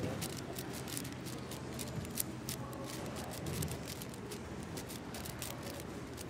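AoShi WRM 6x6 speedcube being turned fast during a solve: a quick, irregular run of plastic clicks and clacks from its turning layers, over a steady low background hum.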